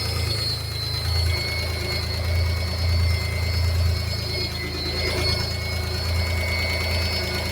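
V6 engine idling after a timing belt change and ten years of standing, with a low hum that swells and fades about once a second and a thin steady high whine over it. It sounds wrong to the owner, who suspects the clutch.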